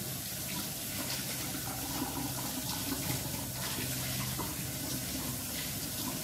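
Kitchen tap running steadily into a stainless steel sink, with hands rinsing wood ear mushrooms under the stream and small irregular splashes.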